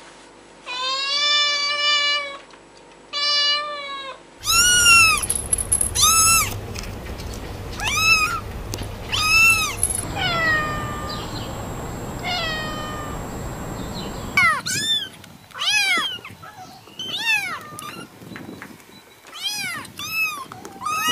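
Cats meowing, three different animals in turn. First a young cat gives two long, drawn-out meows. Then an adult cat gives a string of repeated meows over a low background hum. Then a litter of kittens gives many short, high-pitched mews, overlapping and in quick succession.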